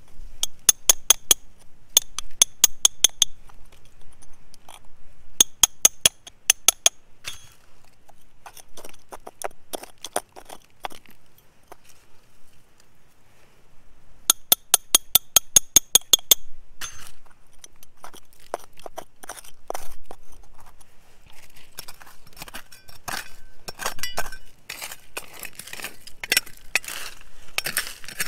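Small hammer tapping a steel chisel into rocky soil in quick runs of strikes, about five a second, each one ringing metallically; the runs come in four groups, the last about halfway through. After that, softer scraping and scratching as a blade works loose dirt and stones.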